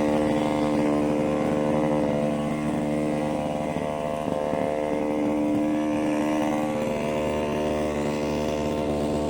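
A motor running steadily at a constant pitch, with a slight wavering about halfway through.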